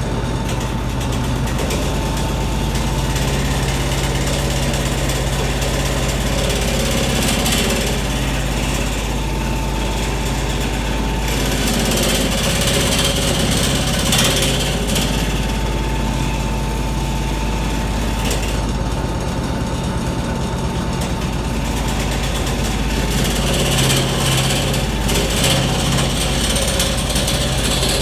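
Mophorn wood lathe running with a steady hum while a turning tool cuts the spinning wood, adding a rough scraping noise that swells and fades every few seconds.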